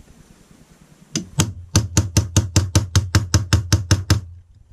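Small steel hammer tapping a pin punch, driving the pin that holds an aluminium trigger guard into an AR-15 lower receiver. About fifteen quick, even taps, roughly five a second, begin about a second in and stop shortly before the end.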